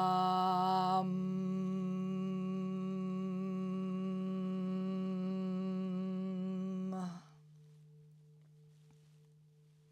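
A woman's long sustained chant of the seed syllable "VAM". It closes into a steady hum on the "m" about a second in and is held until it stops about seven seconds in. A Tibetan singing bowl tuned to D rings underneath and carries on softly after the voice, with a slow wavering in its tone as it fades.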